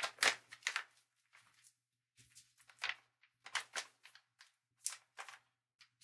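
Irregular short rustles and scrapes of packaging handled as a cigar box is opened, loudest right at the start.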